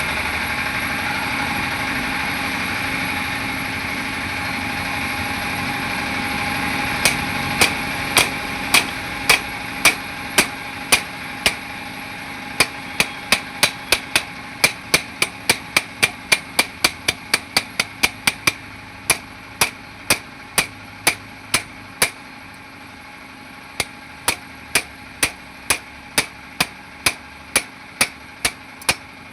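A hammer strikes metal in an even rhythm of about two blows a second, starting about a quarter of the way in and pausing briefly about three-quarters through. A steady mechanical hum runs underneath and slowly fades.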